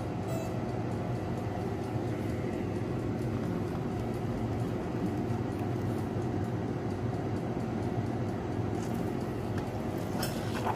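Countertop glass-bowl convection oven running with a steady hum while a chicken cooks inside. A few sharp clicks come near the end.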